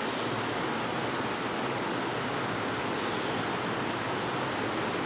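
Steady, even rushing room noise with a faint low hum underneath.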